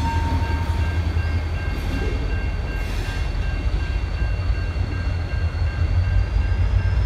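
CN diesel locomotive's engine rumbling low as it moves slowly away through a level crossing, with a wheel squeal dying out about a second in. The crossing warning bell rings steadily throughout.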